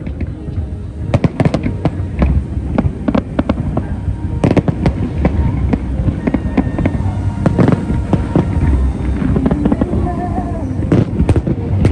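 Fireworks exploding in quick succession, a dense run of sharp bangs and crackles over a continuous low rumble.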